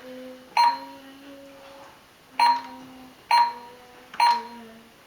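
Cash register keys being pressed four times, each press a sharp click with a short ringing tone, over a faint steady low hum.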